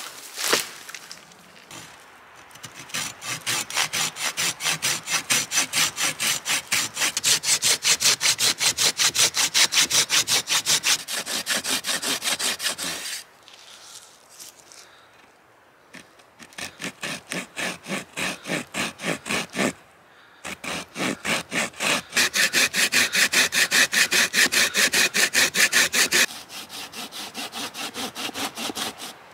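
Hand saw cutting through dead branch wood in quick, even back-and-forth strokes, about three a second, in several runs with short pauses between them. A sharp crack near the start, as a dead branch is snapped off.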